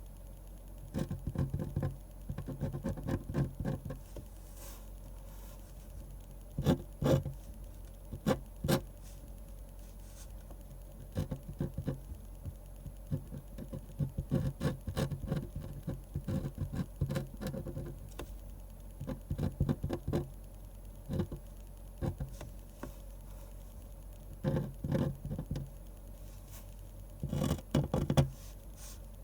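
Pen scratching and tapping on paper while drawing a manga, in clusters of quick short strokes separated by brief pauses.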